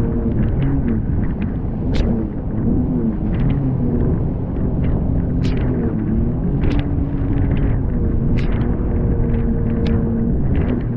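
Jet ski engine running under way through rough chop, its pitch rising and falling with the throttle, then holding steadier in the second half. Over it come repeated sharp slaps and splashes as the hull hits the waves.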